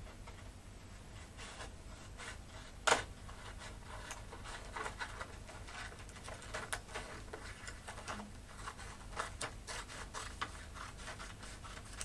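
Scissors cutting a folded sheet of colour paper along its crease: a run of irregular snips and paper rustles, with one louder snap about three seconds in.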